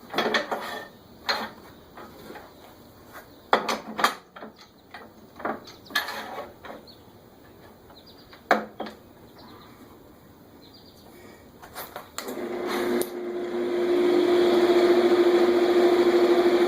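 Scattered knocks and clicks of metal and wood as a lathe's tailstock is backed off and the work is handled. About twelve seconds in, the wood lathe's motor starts, builds up over a second or two and runs at a steady hum.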